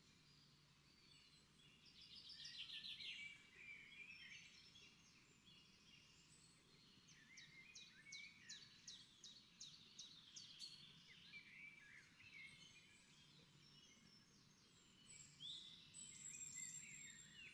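Near silence with faint birds chirping and twittering in the background, including a quick run of repeated high notes in the middle.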